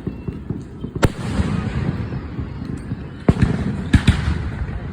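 Fireworks going off: sharp bangs about a second in and again near the end, with crackling in between.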